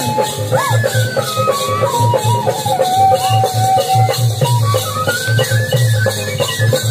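Traditional Nepali folk music for the peacock dance: a steady low drumbeat with quick, light percussion on top and a melody that steps downward in held notes.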